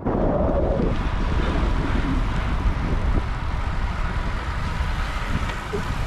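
Wind buffeting the microphone of a riding cyclist's camera, a steady rushing rumble that is strongest in the low end.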